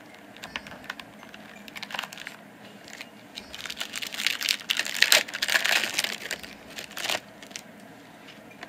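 Foil wrapper of a 1994 Finish Line Gold trading-card pack being torn open and crinkled by hand: a few scattered crackles, then a few seconds of dense crinkling and tearing in the middle, loudest about five seconds in.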